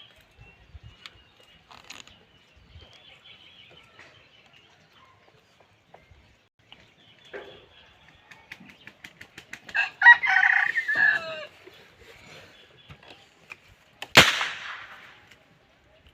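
A rooster crows once, about ten seconds in, against faint scattered clucks and ticks. Near the end comes a single sharp crack, the loudest moment.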